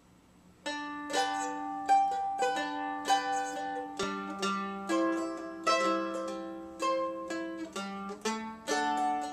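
A vintage May Bell mandolin playing an instrumental intro. The picked notes start about a second in, coming several to the second and ringing on.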